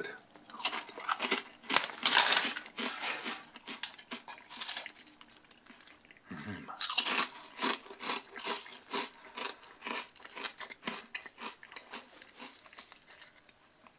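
Lorenz Crunchips 2-Sides potato crisps, X-cut on one side and flat on the other, being bitten and chewed close to the microphone: a run of sharp, irregular crunches, very crunchy, thickest in the first few seconds and again a few seconds later.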